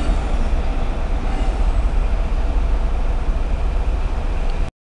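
Passenger train running through the station and moving away, a steady rumble of wheels on the rails. The sound cuts off suddenly near the end.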